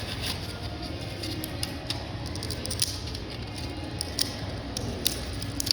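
Irregular clicks and crinkles of plastic packaging being cut and pried open with a small pocketknife, over a steady low background hum.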